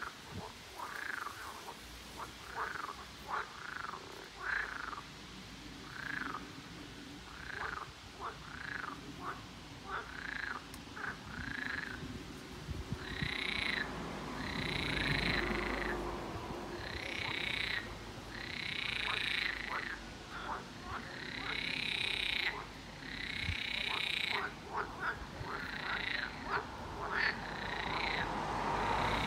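A chorus of pond frogs giving mating calls: many short croaks repeated in quick succession, then from about halfway through longer, higher calls of about a second each.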